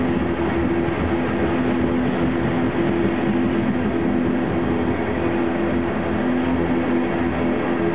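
Loaded coal hopper cars of a long freight train rolling past on the rails: a steady rumble of wheels on track, with a humming tone that comes and goes.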